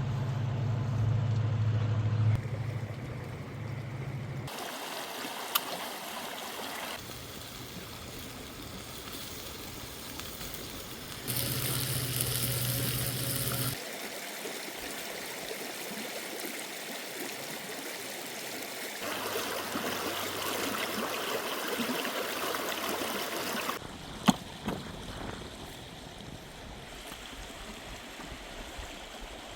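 Steady rushing water noise in a run of short clips cut together, its character changing abruptly every few seconds, with a few sharp clicks.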